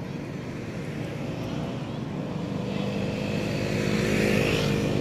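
An engine running with a steady hum, growing louder through the second half as the vehicle approaches.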